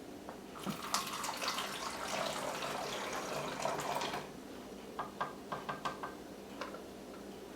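Hydrogen peroxide poured from a measuring cup through a funnel into a plastic soda bottle, splashing for about three and a half seconds, then a few light clicks.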